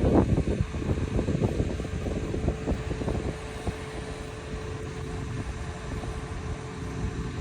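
Machinery running with a steady hum over a low rumble, with irregular rattling for the first few seconds that then dies away.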